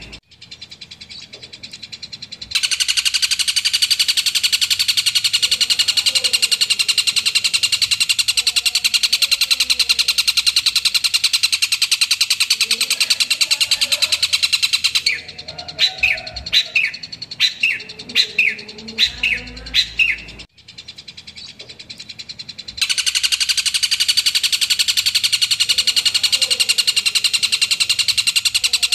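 Long-tailed shrike singing: long stretches of a very fast, dense high-pitched chatter, broken midway by a string of separate sharp chirps, then a short pause before the fast chatter starts again.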